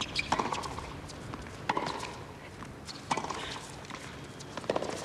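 A tennis rally on a hard court: the ball is struck back and forth by the rackets, four sharp hits about one and a half seconds apart.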